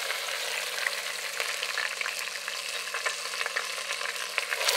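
Whole pork belly slabs sizzling in hot oil in a pot, a steady frying hiss with scattered small crackles of spitting fat.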